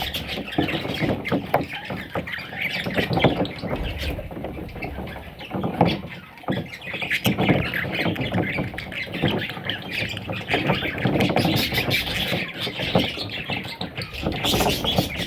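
Parrots squawking and chattering without a break, many harsh calls overlapping.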